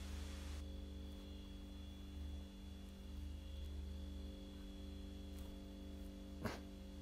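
Low, steady electrical hum, with one brief click near the end.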